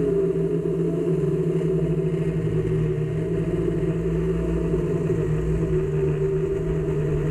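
A steady, low engine-like drone with a hum running through it, and no speech.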